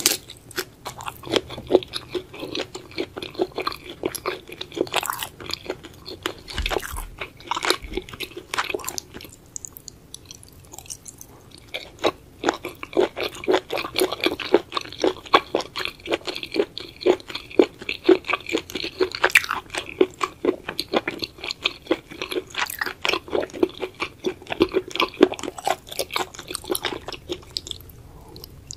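Close-miked eating sounds of spicy braised seafood: shell-on shrimp and octopus chewed in quick, crunchy, wet bites, with a short quieter lull about ten seconds in.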